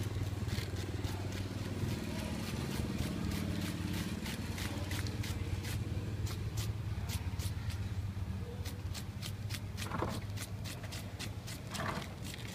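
A knife shaving a hand-held vegetable into thin shreds, in quick, crisp strokes at about three a second, over a steady low hum.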